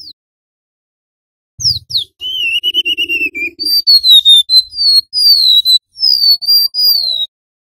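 Golden-bellied gerygone (remetuk laut) singing sweet whistled notes. After one brief falling whistle, a phrase begins about a second and a half in: two quick falling notes, a long wavering held note, then a run of sliding, falling whistles that stops short near the end.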